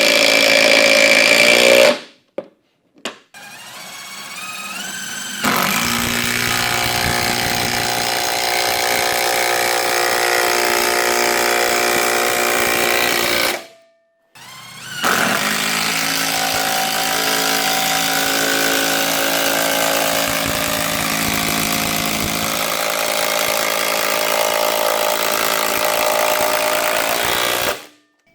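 Festool TID 18 cordless impact driver driving screws, its motor spinning up and then hammering steadily in two long runs that each stop abruptly, after a short burst at the start.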